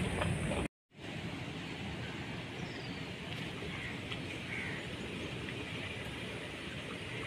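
Steady outdoor rushing noise with a few faint bird chirps, broken by a brief dropout under a second in.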